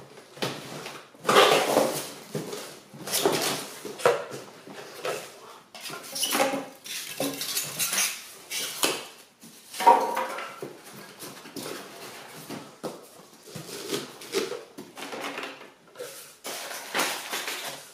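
A large cardboard box being cut open and unpacked by hand: irregular rustling, scraping and knocking of cardboard and foam packing, in uneven bursts with the loudest about a second and a half in and about ten seconds in.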